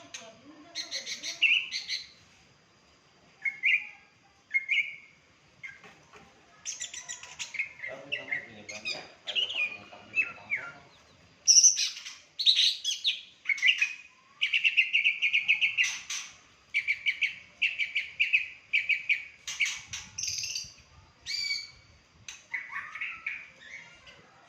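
Wild-caught songbird singing a varied song of rapid trills, chattering notes and short whistled phrases, broken by brief pauses.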